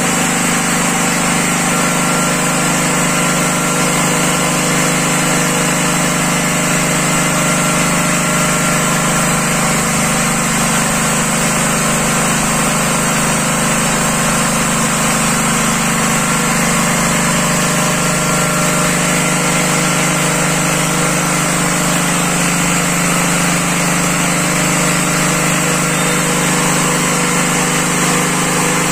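Vijay Villiers Mk12 single-cylinder stationary engine running at a steady speed, its note holding even throughout.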